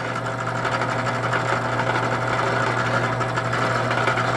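Bench drill press motor running steadily with the Forstner bit spinning free, not cutting: a constant even hum.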